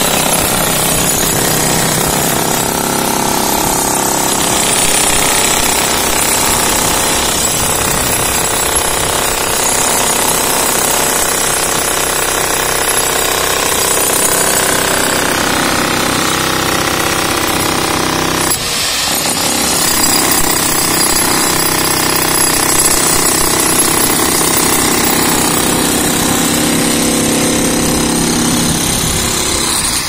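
Two corded electric demolition hammers chiselling into a reinforced concrete slab, running together in a continuous hammering din, with a momentary drop a little past the middle.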